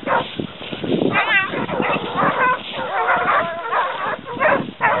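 A pack of Basset Hounds giving tongue while hunting a hare: several hounds baying and yelping at once in overlapping calls, with one wavering cry a little after a second in.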